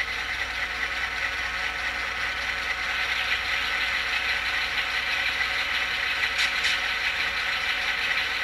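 Soundtraxx Tsunami DCC sound decoder in an HO-scale GP9 model playing its dynamic brake effect: a steady whir of the brake-grid blower fans over the idling diesel, heard through the model's small speaker.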